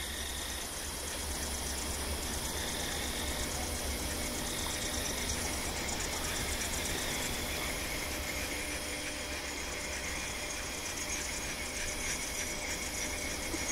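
Steady background noise: a low rumble under a high, fast-pulsing buzz, with no clear single event.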